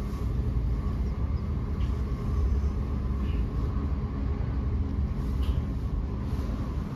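Thameslink electric train heard from inside the passenger cabin, its wheels and running gear giving a steady low rumble as it slows down.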